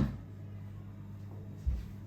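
Household handling sounds in a kitchen: a sharp knock at the start and a dull low thud near the end, over a steady low electrical hum.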